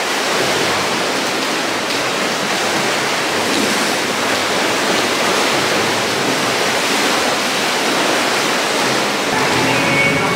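Steady rush of splashing, churning water in an indoor swimming pool with swimmers in the lanes.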